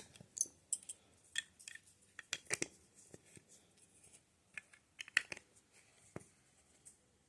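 Plastic Lego pieces clicking and tapping as they are handled and pressed together, in irregular sharp clicks.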